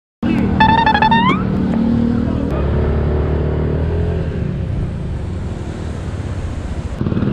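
Motorcycle engine running, its pitch shifting about two and a half seconds in, with a brief high-pitched sound sliding upward about a second in.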